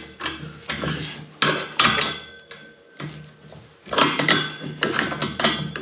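Sharp metallic clicks and knocks, in three bursts, as spanners are worked on a brass compression nut at the end of a copper pipe.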